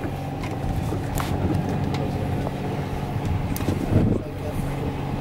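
Boat engine running steadily, with a few light knocks and a louder thump about four seconds in.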